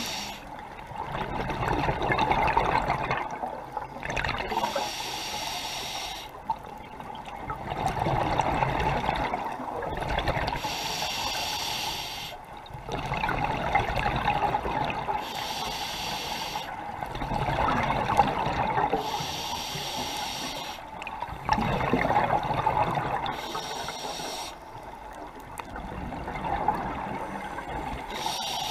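Scuba diver breathing through a regulator underwater: a short hissing inhale about every five to six seconds, each followed by a longer burble of exhaled bubbles.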